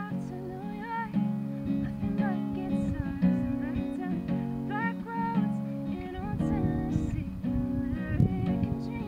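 Acoustic guitar playing a song, chords strummed in a steady rhythm with picked notes.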